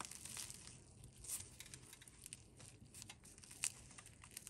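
Faint crackling and tearing of a flaky baked puff pastry being pulled apart by hand, with one sharper crack near the end.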